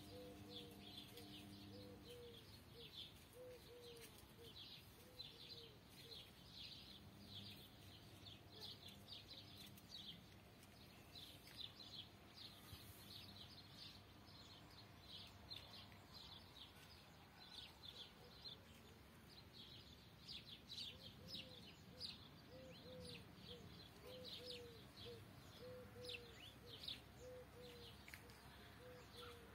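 Faint chorus of small birds chirping throughout, with a pigeon giving runs of low, evenly spaced coos near the start and again over the last third.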